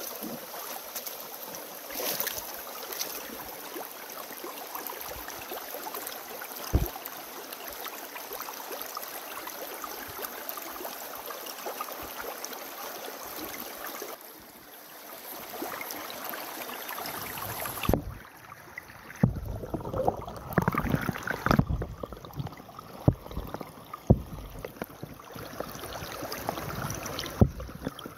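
Creek water rushing steadily through a small sluice box over gravel. About two-thirds of the way in it turns louder and uneven, with low rumbling splashes and sharp knocks.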